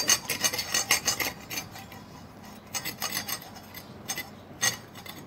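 Dao blade scraping the leftover fibres off a husked coconut's shell: a quick run of short scraping strokes, then a few separate strokes further apart.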